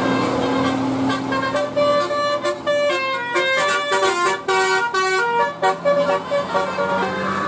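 A bus 'telolet' musical air horn playing a quick tune of short stepped notes, starting about a second in and running until near the end, over the steady drone of a bus engine.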